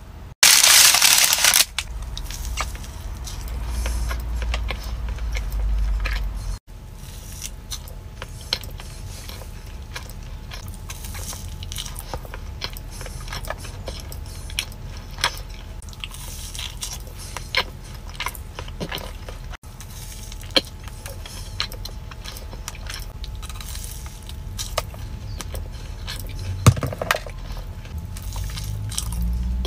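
A person eating a large chocolate chip cookie: close-up bites and chewing, heard as many small crumbly clicks and crunches. A low steady hum sits underneath, and a loud crackling burst lasts about a second and a half right at the start.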